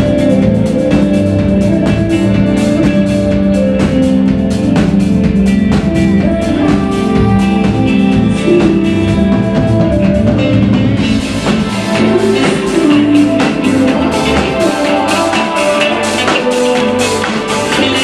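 Live band playing amplified rock music, led by a drum kit. About eleven seconds in, the cymbals come in and the beat gets busier.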